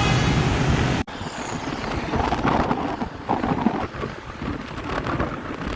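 A tour bus's basuri telolet horn sounds a held chord of several tones, which cuts off suddenly about a second in. After it comes rumbling traffic noise with wind on the microphone.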